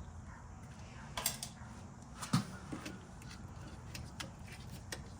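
Washer drive pulley being wiggled off by hand: a series of knocks and clacks of the parts, the loudest about two and a half seconds in, with lighter ticks between.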